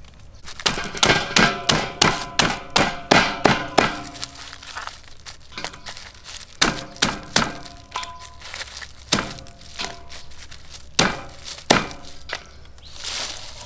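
A quick run of hard knocks, each with a short ringing tone, about three or four a second, easing to a few scattered knocks after about four seconds: a tool striking food or a hard surface during food preparation. A brief hiss near the end.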